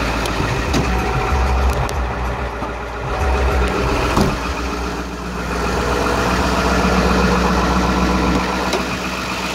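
Ford 7.3-litre Power Stroke turbo-diesel V8 idling steadily, shortly after a cold start at 24°F. A few sharp clicks sound over it, the loudest about four seconds in.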